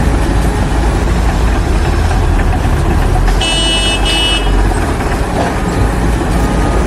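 Loud, steady machinery rumble, with a short, high-pitched tone in two parts about halfway through.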